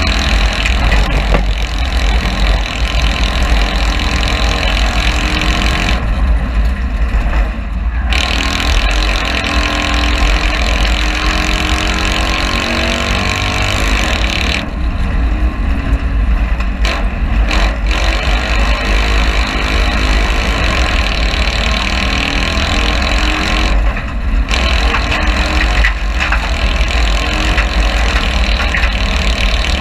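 A Citroën 2CV cross race car's air-cooled flat-twin engine running hard, heard from inside the cabin. The sound drops briefly three times, about 6, 15 and 24 seconds in, then picks up again.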